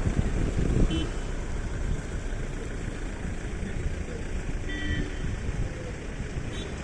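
Steady rushing noise of floodwater in a swollen river, heavy at the low end, with a brief faint tone about a second in and another near five seconds.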